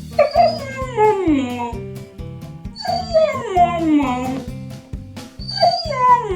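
A dog howling in three long calls, each sliding down in pitch, over background music with a steady beat.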